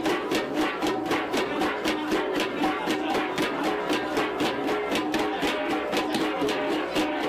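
Kalinga flat gongs (gangsa) played together in a fast, steady interlocking beat, about four to five strokes a second, each stroke ringing briefly.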